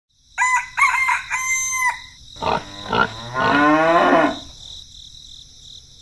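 A rooster crowing: three short pitched calls, then one long wavering crow about two and a half seconds in, with a faint steady high tone underneath.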